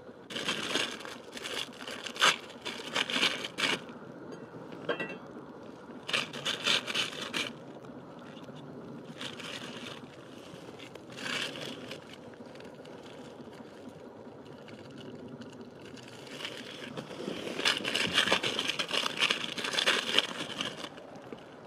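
Plastic ramen wrapper and seasoning packets crinkling and tearing open in irregular bursts, with a longer spell of rustling and crinkling near the end.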